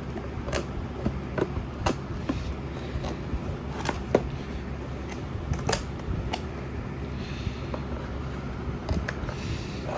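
Irregular light clicks and knocks of a loudspeaker driver and its packaging being handled and unpacked, with brief rustling twice near the end, over a steady low hum.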